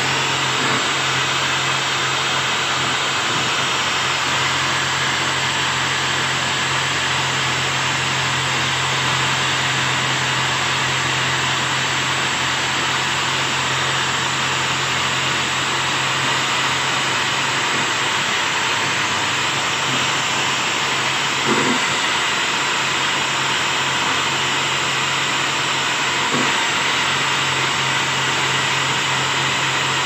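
Electric drill with a round abrasive brush running steadily against the refrigerator's sheet-metal edge, scouring off rust, with two brief louder knocks about two-thirds through and near the end.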